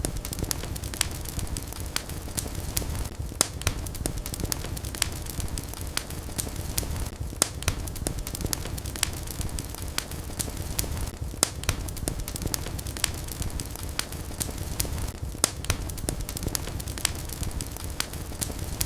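Wood fire burning in a fireplace: a steady low rumble of flames with frequent sharp, irregular pops and crackles from the burning logs.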